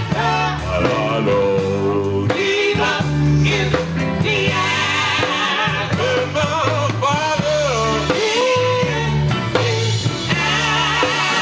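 Gospel group singing live with instrumental backing; voices wavering with vibrato over a steady bass line.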